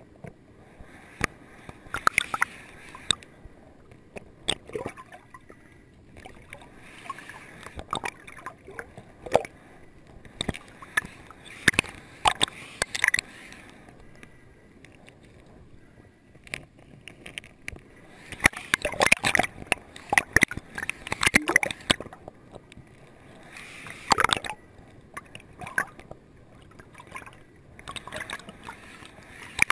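Underwater in a stony stream: water gurgling and sloshing around the camera, broken by clusters of sharp clicks and knocks as the diver's hand moves over and shifts stones on the streambed.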